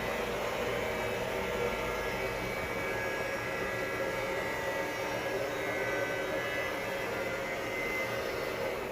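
Electrolux LA15F washing machine running with a steady mechanical drone and a faint motor whine.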